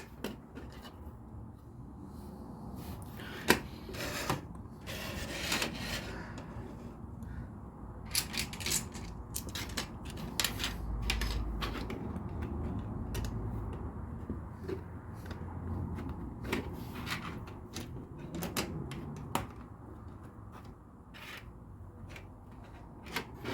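Plastic LEGO pieces clicking and clattering irregularly as they are handled and pressed together, with brief rustling about five seconds in.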